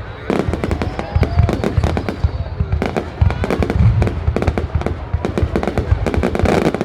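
Fireworks going off in a dense, irregular run of bangs and crackling pops, many in each second.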